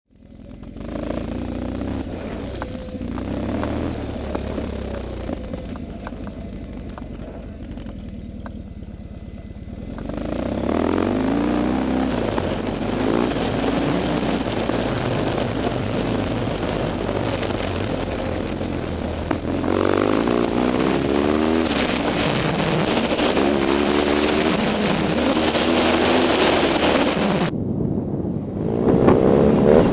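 BMW R1100GS motorcycle's boxer-twin engine running while being ridden off-road, revving up and down with the throttle. Quieter for the first ten seconds, then louder from about ten seconds in.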